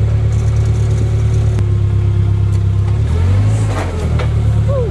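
Komatsu forklift engine running steadily while the forks lower a load of stone toward a pickup bed. The engine note shifts about three seconds in, with a few knocks, and a short falling squeak comes near the end.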